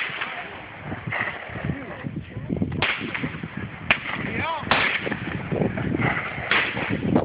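Shotgun being fired, about five sharp bangs spread over several seconds, with voices between them.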